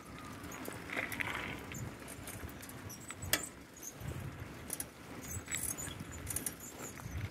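Bicycle ridden along a paved road: small metallic rattles and clicks from the bike, with one sharper click about three seconds in, over a low uneven rumble.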